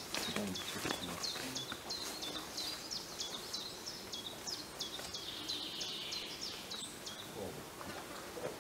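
A pied flycatcher fledgling giving repeated begging calls: short, high-pitched peeps at about two a second, asking to be fed, stopping near the end.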